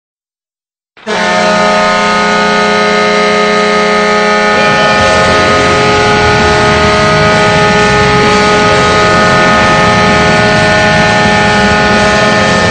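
Atlanta Thrashers arena goal horn: a loud multi-tone air horn blast that starts about a second in and holds steady for more than ten seconds. A lower note in the chord drops out about five seconds in.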